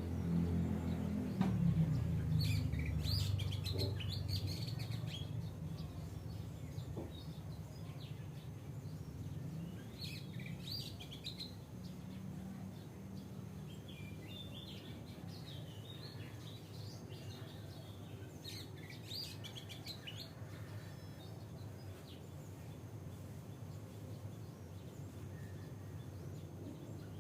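Oriental magpie robin singing: about four short phrases of quick high notes, spaced several seconds apart, over a steady low rumble of background noise.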